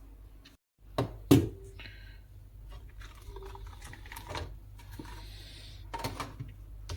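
A few sharp clicks and light knocks of tools and parts being handled on a repair bench, over a low steady hum.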